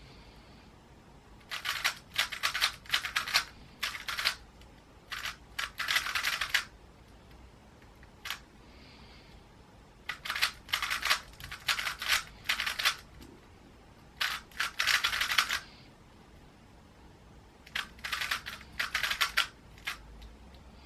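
3x3 Rubik's cube being turned quickly by hand during a solve: bursts of rapid plastic clicking and clacking as the layers turn, broken by short pauses of a second or more between bursts.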